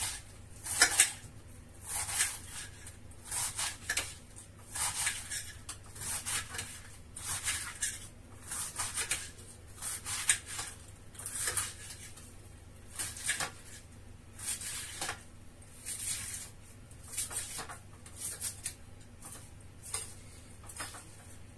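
Kitchen knife slicing lettuce into thin shreds on a plate: short crisp crunching strokes, the blade clicking against the plate, coming in quick pairs and threes about a second apart.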